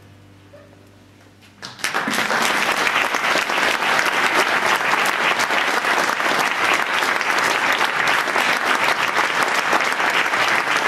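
A held low chord on a piano accordion fades out, and about two seconds in an audience breaks into loud, steady applause.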